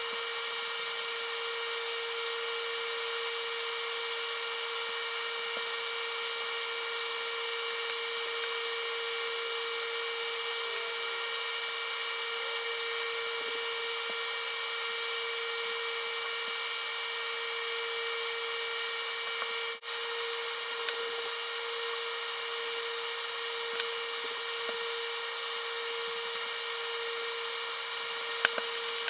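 Steady hiss with a few faint steady hum tones in it, cutting out for an instant about twenty seconds in. A few faint ticks come near the end.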